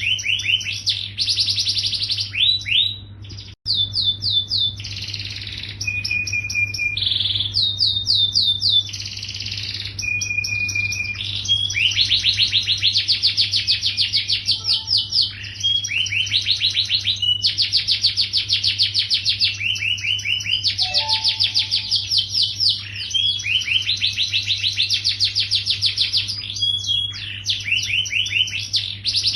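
Yellow domestic canary singing without pause: long rolling trills of fast repeated notes, broken now and then by short steady whistled notes, over a steady low hum.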